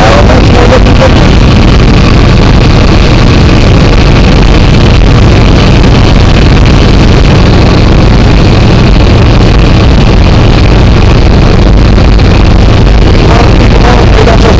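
Aircraft piston engine and propeller droning steadily inside the cabin, loud enough to overload the recording.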